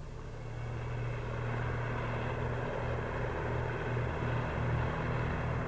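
Tractor engine running steadily with a low hum, growing louder over the first couple of seconds and then holding, as it mows a hay meadow.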